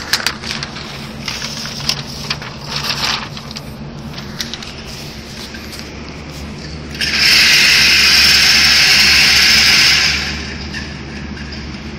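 A paper target crackling and rustling as it is handled and hung, then, about seven seconds in, an electric range target carrier running for about three seconds with a loud, steady, hissing whir that cuts off sharply. A steady low hum lies underneath throughout.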